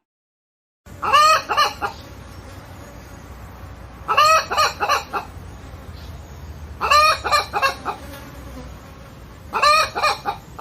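A hen calling in four short bursts of several quick notes each, about three seconds apart, over a steady low background hum.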